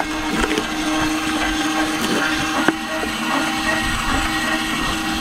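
Travel trailer's electric stabilizer jacks running with a steady motor whine as the legs extend down onto plastic bed-riser blocks, with a single click about two and a half seconds in.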